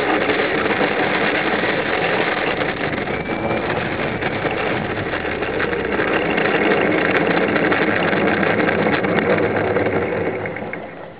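RC model airplane's engine running, heard through the plane's own onboard camera, with a rushing noise over it. The sound falls away near the end as the engine throttles down or stops.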